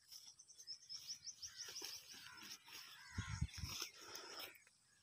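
Small birds chirping, with a quick high trill about half a second in, over the rustle of leafy bushes being pushed through. A few low thumps about three seconds in are the loudest sound.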